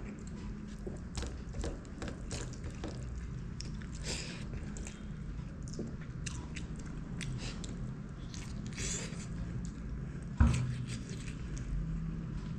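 Close-up eating sounds: a person chewing and smacking food, with many small irregular clicks. A sharp knock about ten seconds in is the loudest sound.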